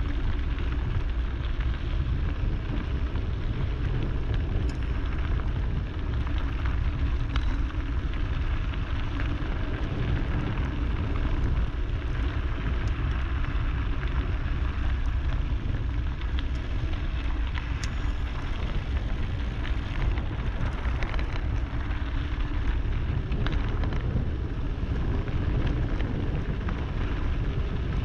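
Wind buffeting the camera microphone and the rumble of a Scott Spark Comp mountain bike's tyres rolling fast over loose gravel on a descent, with a few sharp small ticks and clicks from stones and the bike.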